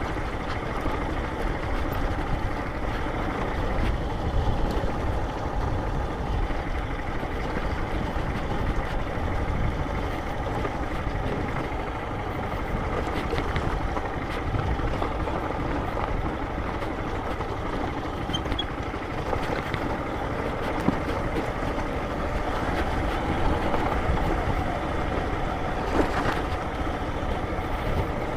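Motorcycle running steadily while being ridden along a dirt road, engine and tyre noise mixed together, with scattered small clicks.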